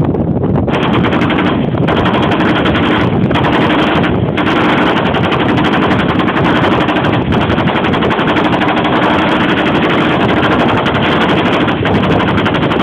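Machine gun firing long, rapid bursts, broken by a few brief pauses in the first seconds.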